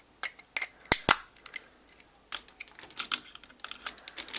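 Hard plastic parts of a Power Rangers Blizzard Force Megazord toy clicking and snapping as it is handled and posed, with two sharp clicks about a second in among lighter taps.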